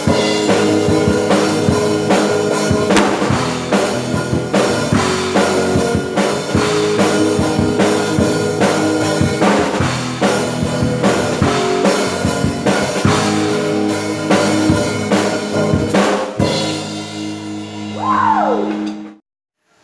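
A worship song played by a band with a drum kit driving steady kick, snare and cymbal hits. About three-quarters of the way through, the drums stop on a final held chord, a falling slide in pitch follows, and the music cuts off abruptly near the end.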